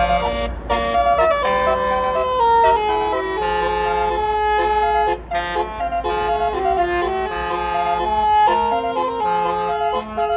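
Bus telolet horn, a Basuri multi-trumpet horn, playing a fast melody of stepped notes over the low rumble of the bus engine, which fades near the end.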